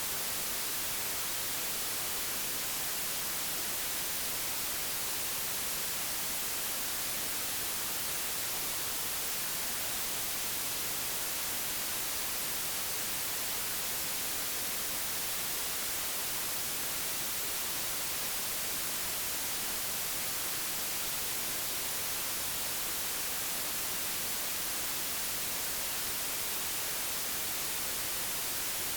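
Digitally generated white noise: a steady, even hiss that does not change.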